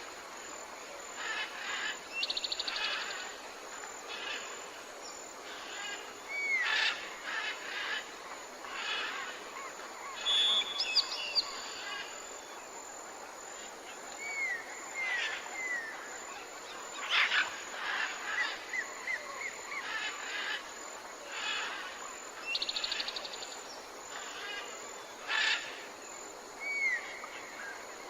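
Several wild birds calling and singing over one another: short chirps, curved whistled notes repeated now and then, and a brief fast trill that comes twice, over a faint steady outdoor hiss.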